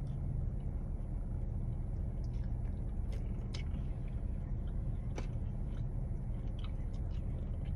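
Close-up chewing and mouth sounds of someone eating buffalo wings, with a few short sharp clicks, over a steady low hum.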